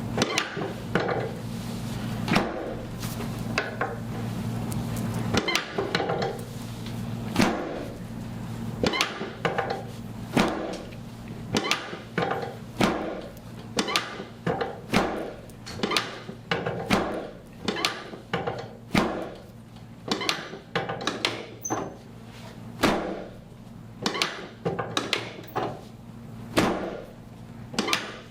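Chiropractic drop table thudding again and again as the chiropractor thrusts on the lower back, the drop sections snapping down with sharp knocks about once a second, coming closer together in the second half. A low hum sits under the first few seconds.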